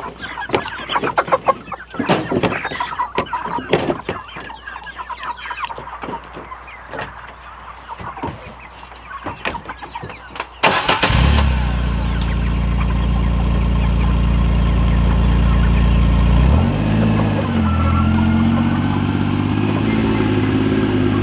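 Chickens clucking inside plastic transport crates, with knocks and clatter as the crates are handled on the bed of a side-by-side UTV. About halfway through, the UTV's engine starts and runs steadily, louder than everything before it, changing pitch about six seconds later as it pulls away.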